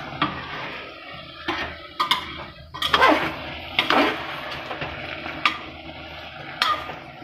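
Metal ladle scraping and clinking against the inside of an aluminium pressure cooker while chopped vegetables are stirred, with irregular sharp knocks of metal on metal.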